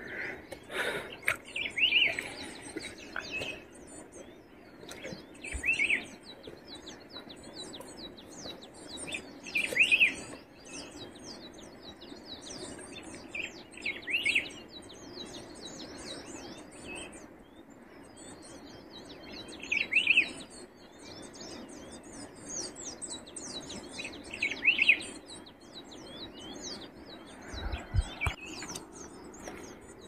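Wild birds chirping steadily. One louder bird repeats a short rising-and-falling call about every four to five seconds, over scattered light knocks and rustles.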